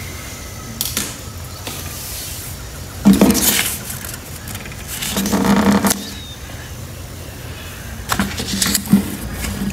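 Origami paper being handled and folded: two louder rustling, crinkling stretches about three and five seconds in, and a few short crisp taps of paper near the start and end, over a steady low hum.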